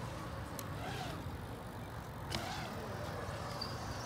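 BMX bike tyres rolling on smooth concrete through a skate-park bowl, the tyre hum rising and falling with speed through the transitions, with a couple of light clicks.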